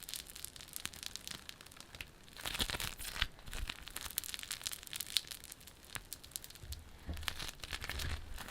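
Bubbly slime being squeezed and worked in the hands, crackling with rapid trains of small pops as the air bubbles in it burst, coming in several bursts.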